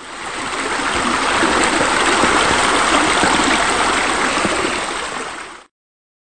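Running, splashing water from a pool's waterfall features spilling into the water, a steady rush that swells in over the first second, then fades a little and cuts off suddenly near the end.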